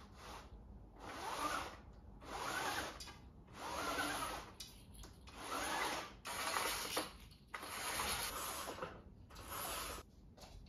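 A zebra (day-and-night) roller blind is being raised by hand with its pull cord. There are about seven pulls, roughly one a second, and each is a short rubbing run of the cord through the blind's roller mechanism.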